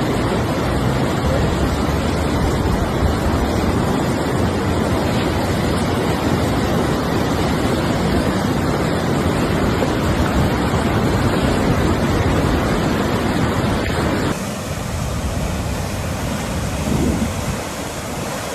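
Rushing water with wind buffeting the microphone: a dense, steady roar. About fourteen seconds in it cuts to a somewhat quieter rush of water.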